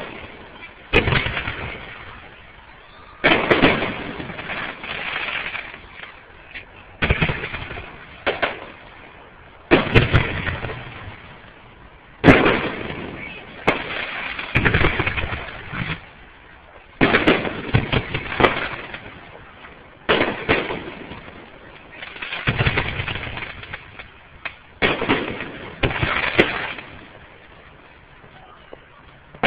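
Aerial fireworks shells bursting one after another, a loud bang every two or three seconds, each trailing off over a second or two.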